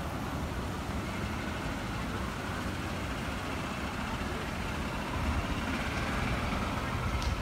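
Steady street traffic rumble, growing a little louder about five seconds in as a vehicle passes.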